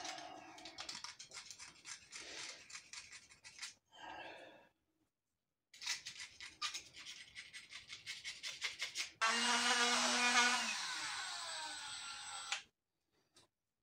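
Quick, even scrubbing strokes of a brush on a shock absorber part, working off caked-on mud. Near the end a small electric motor runs for about three seconds and winds down.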